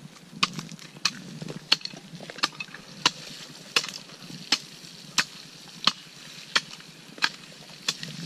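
Hoe blade chopping into soil, about a dozen sharp strikes evenly spaced, roughly three every two seconds, as it cuts a water-catchment groove and weeds around a newly planted tree. A faint hiss of water pouring from a watering can's rose onto the soil runs underneath.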